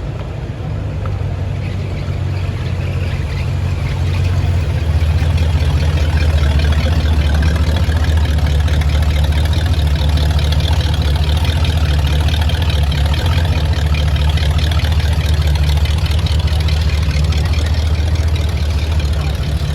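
An engine idling steadily, a low hum that gets louder about four seconds in.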